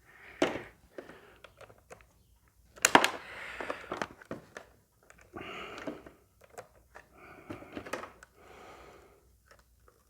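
Clicks, knocks and rustling of a hand-held battery tester being handled and set up, with one sharp knock about three seconds in.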